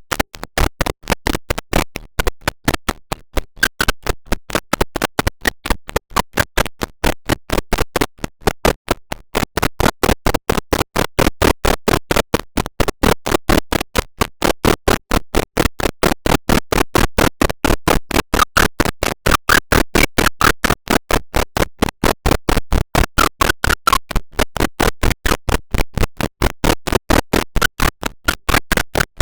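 A rapid, even train of sharp clicks, about six a second.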